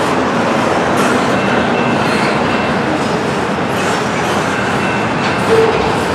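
Double-stack intermodal well cars of a freight train rolling past close by: a steady loud rumble and clatter of steel wheels on rail, with a short squeal near the end.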